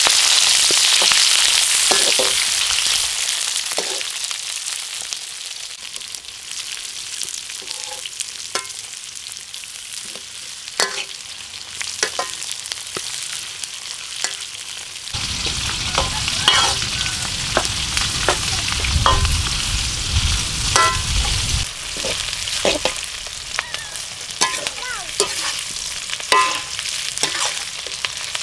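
Vegetables frying in hot oil in a steel wok: a loud sizzle at first that dies down over the first few seconds, then a softer sizzle with a metal ladle scraping and clinking against the wok as they are stirred. A low rumble joins for several seconds midway.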